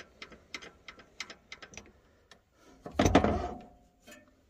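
MX-210V mini lathe running with a rapid, even ticking of about five ticks a second. About three seconds in comes a loud clatter, then a tone that dies away as the spindle is stopped and coasts down.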